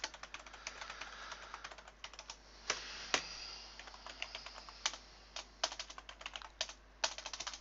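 Typing on a computer keyboard: quick runs of keystrokes with short pauses between them, a few keys struck harder than the rest.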